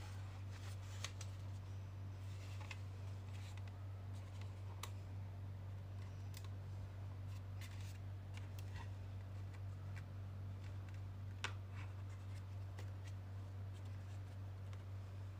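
Scattered light clicks and rubs from hands handling a white plastic Wi-Fi router and swinging up its hinged antennas, over a steady low hum.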